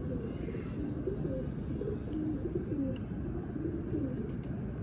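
Domestic pigeons cooing: repeated low, wavering coos.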